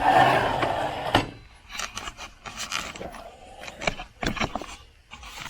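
Footsteps and handling noises in a workshop: a brief rubbing scrape, then a string of irregular knocks and clicks.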